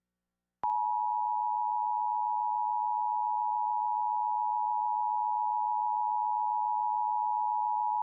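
Emergency Alert System attention signal: a steady two-tone alert near 1 kHz that starts abruptly under a second in and holds without change. It announces an emergency warning that is about to be read, here a severe thunderstorm warning.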